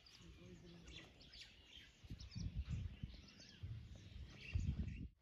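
Faint outdoor ambience with birds chirping here and there and a few short low rumbles, the loudest about two and a half seconds in and near the end.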